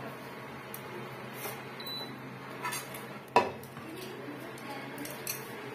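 Metal spatula scraping cooked bottle-gourd mash out of a non-stick pan onto a steel plate, with a few light clinks and one sharp knock about three and a half seconds in.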